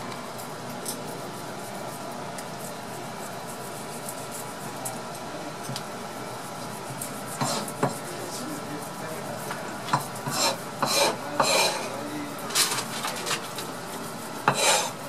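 Kitchen knife scraped in short rasping strokes along a whole fish's skin, taking off the scales. The strokes start about halfway in and come in quick bursts near the end.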